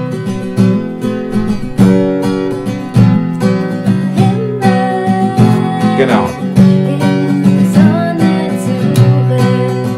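Steel-string Taylor acoustic guitar strummed in a steady rhythm, playing the chords of the song as it is played on stage: in the chorus these are just C, F and G.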